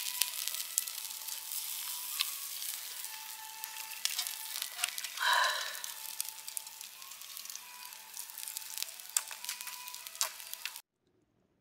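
Glazed meat skewers sizzling on a grill grate over an open wood fire: a steady hiss dotted with small crackles and pops, with a short louder rush about five seconds in. The sound cuts off abruptly near the end.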